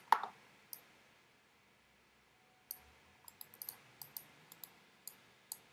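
Scattered sharp clicks of a computer mouse and keyboard as node values are entered, one early on its own and then a run of irregular clicks in the second half. A short voice sound is heard right at the start.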